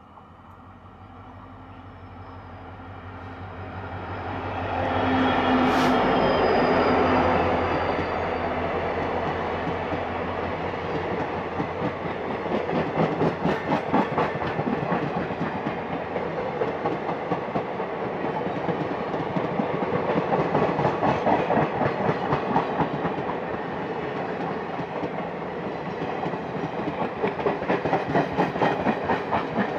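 WDP-4 diesel-electric locomotive, an EMD two-stroke, approaching and passing at speed, growing louder for about five seconds to a peak as it goes by. Then its passenger coaches roll past with a continuous rhythmic clickety-clack of wheels over rail joints.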